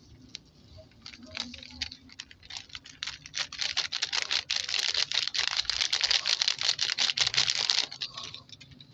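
Plastic instant coffee sachet crinkling and rustling as its powder is shaken out into a ceramic mug. Scattered crackles come first, then the rustle thickens for several seconds and stops shortly before the end.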